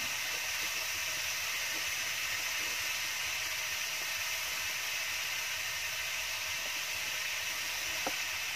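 Marinated chicken sizzling steadily in a ridged grill pan over a wood fire, with a single faint click near the end.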